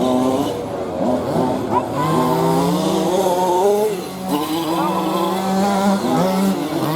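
Radio-controlled model cars' motors whining, the pitch rising and falling as they speed up and slow down, with a steadier held tone in between.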